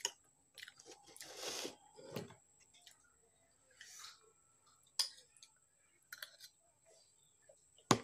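Chewing and mouth sounds of a person eating a spiced chickpea dish (kelichana), in short scattered bursts, with a few sharp clicks of a spoon against a plate.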